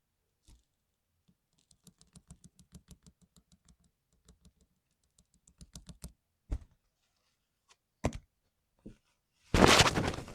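Typing on a modded mechanical keyboard: a quick run of even key clicks, then scattered keystrokes and a few louder single knocks. Near the end comes a loud burst of clatter lasting under a second.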